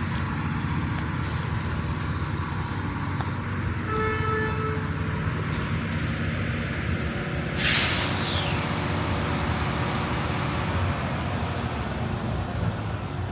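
Steady low rumble of rail and road vehicles around a subway yard, with a short pitched tone about four seconds in. About seven and a half seconds in comes a sudden loud hiss of released air, like an air brake, that fades away.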